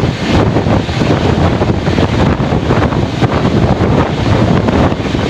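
Loud, steady wind buffeting the microphone over the running rumble of a passenger train moving at speed.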